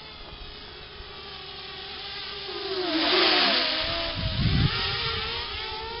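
A quadcopter's motors and propellers whining, the pitch wavering up and down with the throttle. It swells loudest about three seconds in, where the pitch dips and falls away, and a low rumble follows about a second later.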